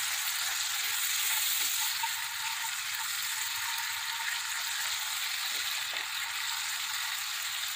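A spiced tomato sauce thinned with chicken stock sizzling steadily in a nonstick pan while a wooden spatula stirs it.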